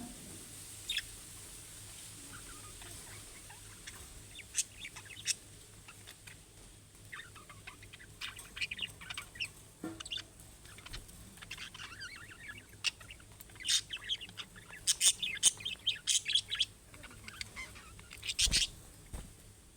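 Budgerigars chirping and chattering: a few scattered short chirps at first, growing busy and overlapping from about a third of the way in, with one sharp knock near the end.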